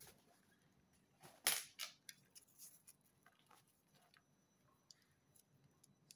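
A sharp click about a second and a half in, a smaller one right after it, then a few faint scattered ticks.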